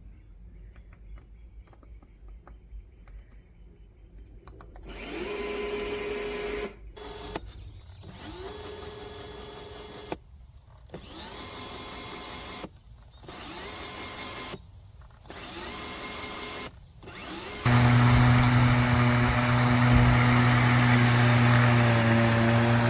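Cordless brushless lawn mower motor spinning up and cutting out about five times in quick succession, each start a short rising whine that levels off. Near the end it starts again and keeps running steadily, much louder.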